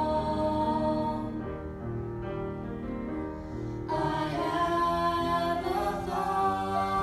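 Mixed vocal trio, two women and a man, singing sustained notes in harmony through handheld stage microphones. The sound drops softer after about a second, then swells fuller again about four seconds in.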